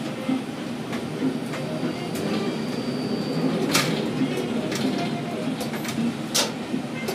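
Container gantry crane machinery running with a steady mechanical rumble, broken twice by sharp metallic clanks.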